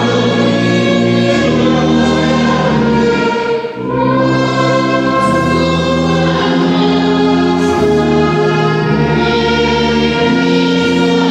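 A church orchestra with prominent tubas plays a hymn in slow, held chords, with voices singing along. There is a short break between phrases about four seconds in.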